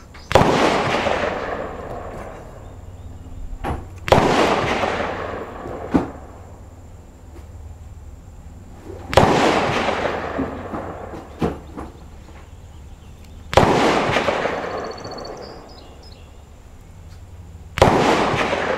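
Five rifle shots from a scoped Mossberg 640K bolt-action .22 Magnum, about four to five seconds apart, each followed by an echo that fades over a couple of seconds. A few fainter sharp clicks fall between the shots.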